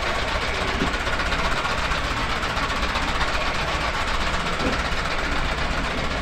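Narrow-gauge diesel locomotive's engine idling steadily.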